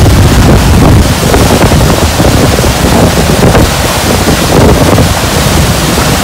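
Swollen, high river water rushing and churning into whitewater: a loud, steady rushing noise, with wind buffeting the microphone.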